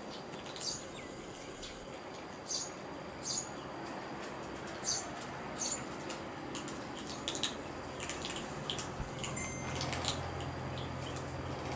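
Kittens crunching dry cat kibble from a plate: short crisp crackles every second or so, coming quicker in the second half. A low steady hum comes in near the end.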